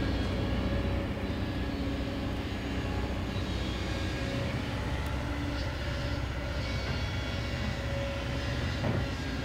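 Kobelco SK200-10 hydraulic excavator's diesel engine running steadily as the machine works, a continuous low drone with a faint held hum above it.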